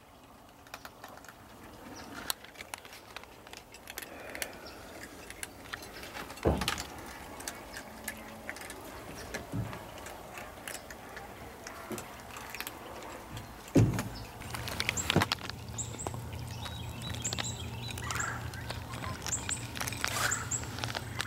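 Small birds chirping repeatedly from about three-quarters of the way in, over scattered knocks and handling noise. Two louder thumps come about a third and two-thirds of the way through, and a low steady hum runs from the second thump on.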